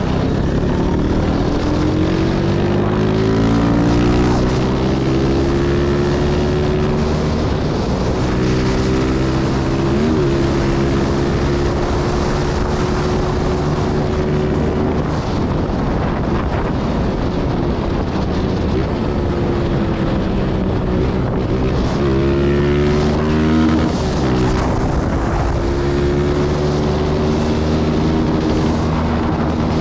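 Honda CG 160 Start's single-cylinder four-stroke engine under way: revs climb in the first few seconds, dip briefly at a gear change about ten seconds in, ease off past the middle and climb again with another shift near the end. Wind rushes over the microphone throughout.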